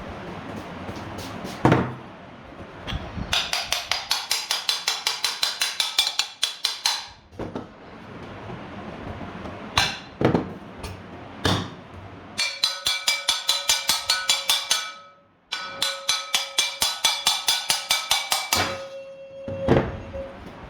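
Hammer tapping on parts of a ceiling fan during bearing replacement. There are fast runs of light blows at about four a second, a faint ringing holds under the later run, and a few single heavier knocks fall in between.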